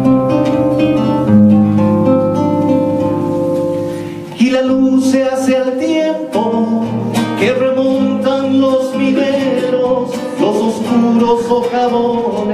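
Acoustic guitar strummed and picked alone, then a man's singing voice comes in over the guitar about four seconds in.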